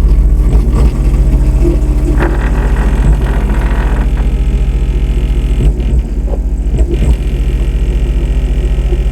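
Massive Audio GTX 15-inch subwoofer playing loud, steady deep bass on a bench test, with a buzz of higher overtones riding on it. A few brief knocks come in past the middle.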